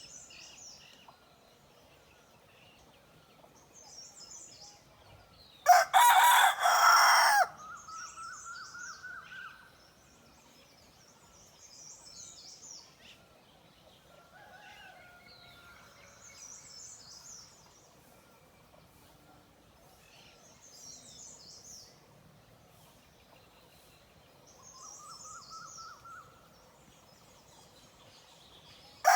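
Naked neck rooster crowing once, loudly, about six seconds in, and starting another crow right at the end. Small birds chirp in short high phrases about every four seconds throughout, with fainter fowl calls in between.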